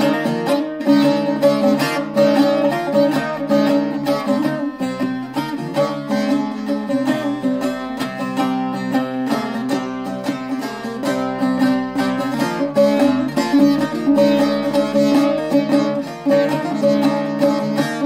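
Bağlama (long-necked Turkish saz) strummed in a fast, continuous instrumental melody, with no singing.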